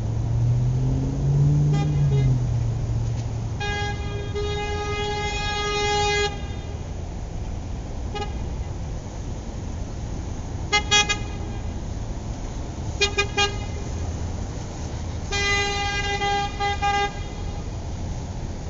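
Car horns honking over a steady low traffic rumble: several long blasts and quick repeated toots.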